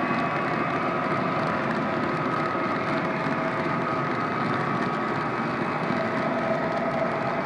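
O-gauge model freight cars rolling past on three-rail FasTrack, a steady rumble of metal wheels on the rails, with a faint steady hum running under it.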